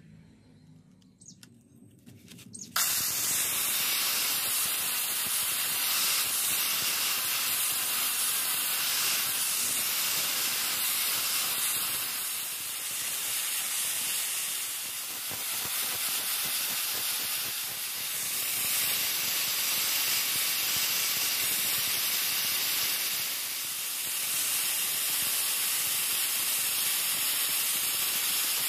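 Electric angle grinder with a sanding disc running against a sword handle, a steady loud hissing rush with a faint high whine. It starts suddenly about three seconds in, after a few quiet seconds.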